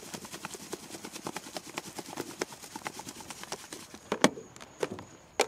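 Plastic Tupperware container being shaken to coat fish fillets in seasoning: a fast, even rattle of knocks that stops about four seconds in, followed by a couple of sharp knocks near the end.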